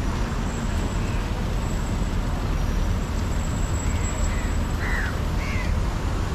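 Steady outdoor rushing noise with a heavy low rumble. Over it come a few short bird calls in the second half, the clearest about five seconds in.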